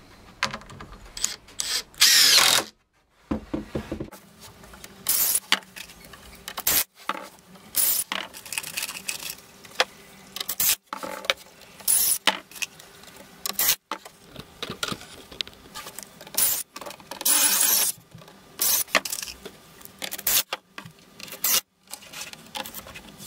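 DeWalt cordless impact driver driving screws into timber in a dozen or so short bursts, each about half a second to a second long. Between the bursts come sharp knocks and rubbing as the boards and the tool are handled.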